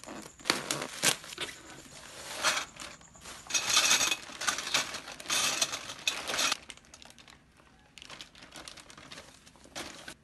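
Packaging crinkling and rustling in irregular bursts as it is handled and opened, with a few sharp clicks. It is loudest through the middle and thins out to a few scattered crackles near the end.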